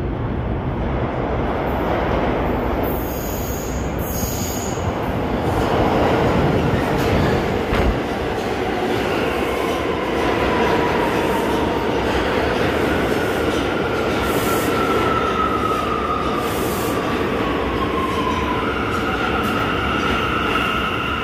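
New York subway train running on the tracks with a loud, steady rumble; from about nine seconds in, high-pitched wheel squeals join it, one gliding slowly down, then a steady squeal near the end.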